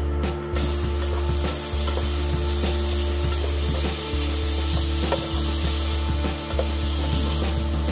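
Hot oil sizzling in a nonstick frying pan as turmeric powder is added and stirred around with a spatula, with a few light scrapes and taps. The sizzle starts about half a second in. Under it runs a steady low hum that dips briefly about every second, the sound of the induction hob cycling.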